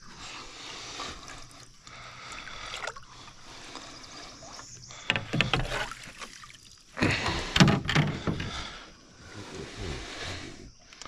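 River water sloshing and splashing at the side of a small aluminium boat as a hooked catfish is pulled up on the line, with louder splashing about five seconds in and again about seven to eight seconds in.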